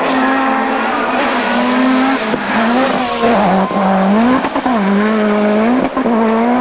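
A Group B rally car's engine running flat out. Its note is held high and dips briefly several times before climbing back, as the driver shifts or lifts. There is a short burst of hiss about three seconds in.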